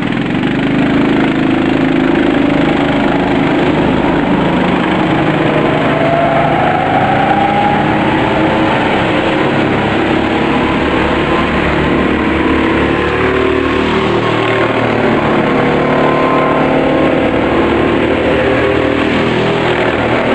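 Several go-kart engines running and revving together, their pitches rising and falling and overlapping as the karts accelerate and pass.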